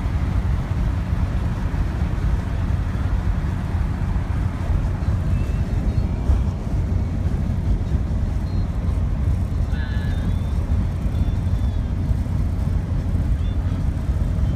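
Steady low road and wind rumble of a car driving on the highway.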